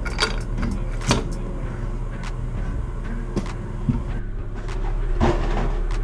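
Scattered sharp clicks and knocks from a toilet supply line's coupling nut being worked by hand under the tank, over a steady low hum.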